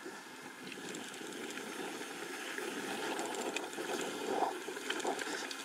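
Mountain bike rolling down a dirt and gravel trail: the tyres rush over the dirt, with many small clicks and rattles from grit and the bike, slowly getting louder.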